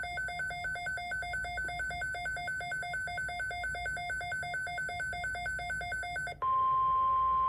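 Emergency alert receiver sounding its alert tones: a rapid, regular electronic beeping that alternates between two pitches for about six seconds, then switches abruptly to a single steady, louder tone near the end.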